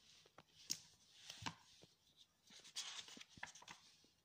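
Faint rustling and light taps of a hardcover picture book being opened and its paper pages turned by hand.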